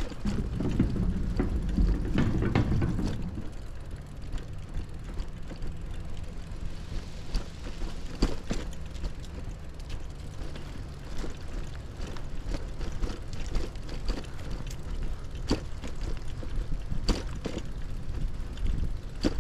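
Brompton folding bicycle being ridden: a steady low rumble of tyres and wind, with irregular sharp clicks and rattles from the bike throughout.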